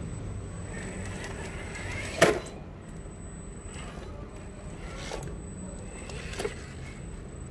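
RC truck running with a steady low rumble and a faint high whine, with one sharp knock a little over two seconds in and a few softer clicks after it.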